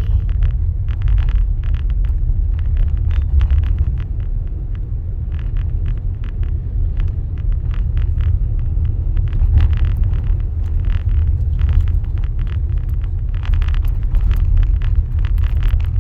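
Car driving on a thickly iced road: a steady low rumble of the car and tyres, with irregular crackling as the tyres run over ice.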